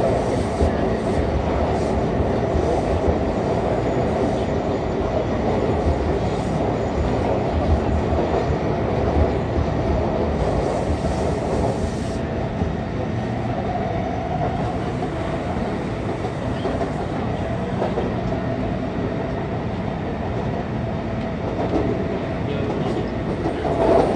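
Taipei Metro C301 train heard from inside the passenger car while running at speed: a steady rumble and rush of wheels on rail, with a louder bump right at the end.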